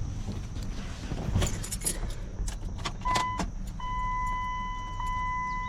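Keys jangling and clicking as they go into the minivan's ignition, then a steady electronic warning chime from the dashboard that starts about three seconds in, briefly, then again, and repeats about once a second.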